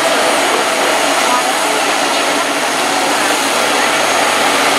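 The Burgh Island sea tractor, said to have a Fordson engine, running steadily as it drives through shallow sea water, under a steady rushing noise.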